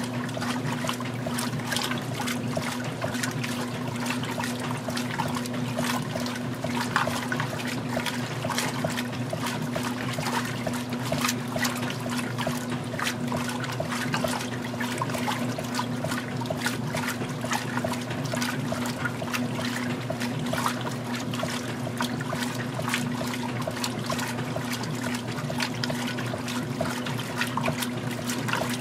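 Magic Chef 20-pound top-load washer agitating its rinse load: water sloshing and splashing around the agitator over a steady motor hum.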